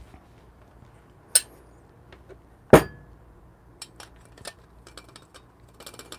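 Stainless-steel espresso gear, a portafilter and a metal dosing cup, clinking as they are handled: a sharp metallic clink about a second in and a louder one near the middle, then a few light ticks. Near the end comes a quick rattle of many small clicks as the dosing cup is set on the portafilter and the grounds are emptied into the basket.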